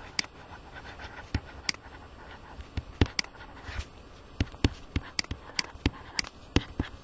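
A stylus tapping and scratching on a pen tablet during handwriting: a string of sharp, irregular clicks, some close together, with faint scratching between them.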